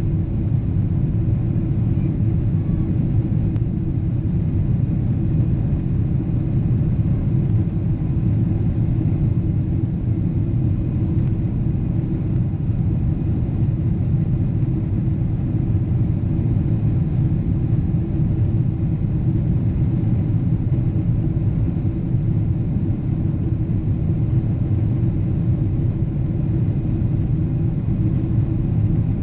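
Boeing 777's twin jet engines running: a steady low rumble that neither rises nor falls.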